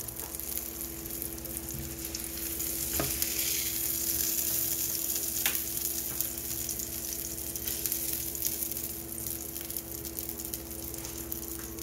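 Frying pan sizzling steadily with a crackling hiss of hot fat. A steady low hum runs beneath, and two light clicks come about three and five and a half seconds in.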